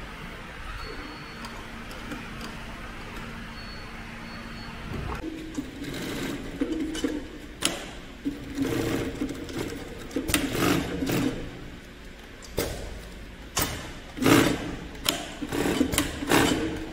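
Heavy-duty FIBC big bag sewing machine (Keestar 1510-L14) stitching in short stop-start runs through a thick layered polypropylene test sample, with knocks between runs. Before that, about five seconds of steady hum.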